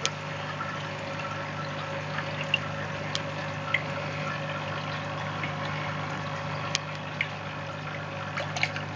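A thin stream of treated water running from a hose outlet and splashing into a small plastic bowl, over a steady low hum, with a few sharp ticks.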